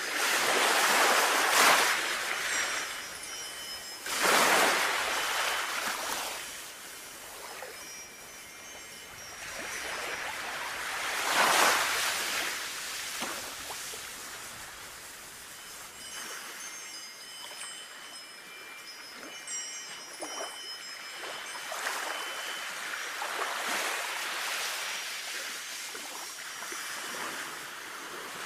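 Sea waves washing in and out in slow swells, with wind chimes ringing over them.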